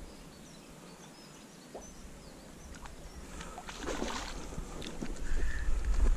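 A small carp splashing at the pond's surface about four seconds in, one short splashy burst. A low rumble swells near the end.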